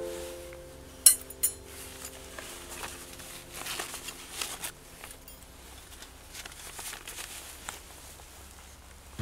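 Background music fading out in the first couple of seconds, then a Bushbox XL folding stove being handled in its fabric pouch: two sharp clicks about a second in, then rustling of the pouch and faint scrapes as the stove's plates are pulled out.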